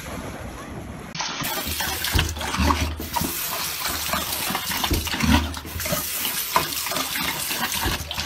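Water running from a bathroom sink faucet into the basin, a steady rushing splash that starts about a second in, while a dog drinks from the stream at the tap.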